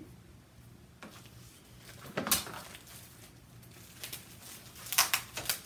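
Metal embroidery frames and their plastic packaging being handled: rustling plastic with several sharp clicks and knocks. The loudest comes about two seconds in, and a quick cluster comes near the end.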